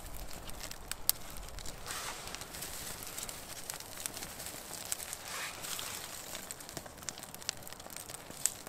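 Small kindling fire crackling as it catches in curled wood shavings, with scattered sharp pops, one louder about a second in. Soft rustling as handfuls of shavings are placed onto the flame.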